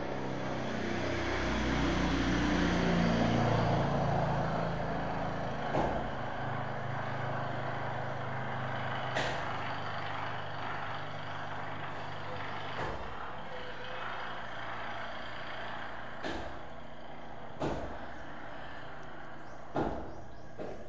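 A motor vehicle's engine running, swelling to its loudest a few seconds in and fading away by about the middle. Several short, sharp knocks follow, one every second or few.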